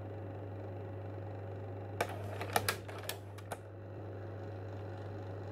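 A quick flurry of typing clicks, like typewriter or keyboard keys, starting about two seconds in and lasting about a second and a half, over a steady low electrical hum.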